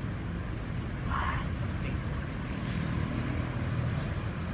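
Night insects, crickets, chirping in a steady even pulse over a low steady rumble, with a brief rustle about a second in.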